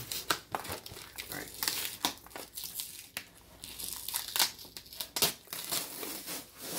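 Packing tape being ripped off a cardboard shipping box by hand, in short irregular tears, with the tape and cardboard crinkling as it is pulled away.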